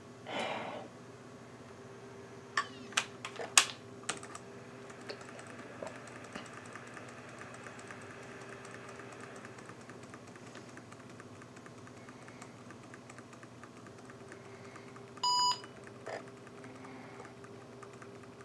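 A few sharp key clicks on an IBM ThinkPad 600E keyboard about three seconds in, then a single short electronic beep from the laptop's built-in speaker near the end, with another key click just after. The beep comes as the ThinkPad restarts through its power-on self-test into Easy-Setup. A faint steady machine hum sits underneath.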